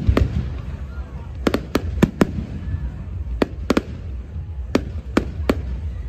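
Aerial firework shells bursting: about a dozen sharp bangs at uneven intervals, some coming in quick pairs and triplets.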